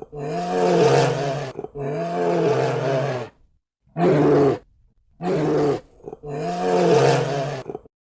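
A bear roaring five times in a row, each call a rough, pitched roar that rises and falls, the first, second and last longer, the third and fourth short.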